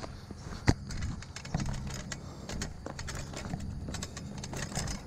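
Footsteps with scattered clicks and rattles from a bicycle being pushed uphill on foot, over a low steady hum.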